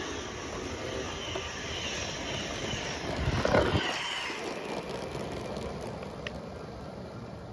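Motorised LEGO train running past on plastic track: a steady whirring rumble of motor and wheels that swells as the train passes closest, about three and a half seconds in, then fades.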